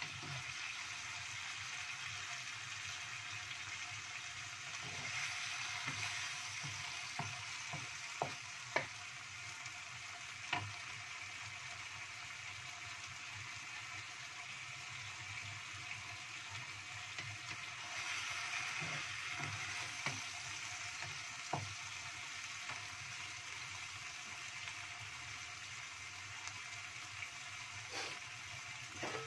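Stingray pieces in green chilli paste sizzling steadily in a hot wok as a wooden spatula stirs them. A handful of sharp taps and scrapes of the spatula against the pan stand out.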